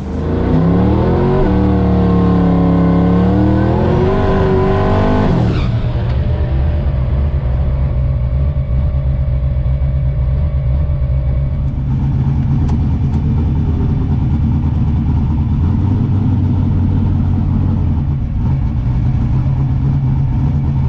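Turbocharged small-block Ford V8 in a Fox-body Mustang drag car revving, its pitch dipping and climbing back up for about five seconds, then settling to a steady idle heard from inside the cabin.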